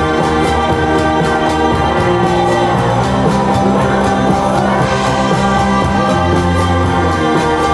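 Recorded song with a singing voice over a steady beat, played loud.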